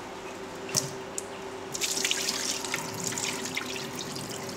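Rinse water poured from a rice cooker's inner pot into a stainless steel sink while the washed rice is drained. A few drips come first, then the pour picks up about two seconds in, splashing and trickling.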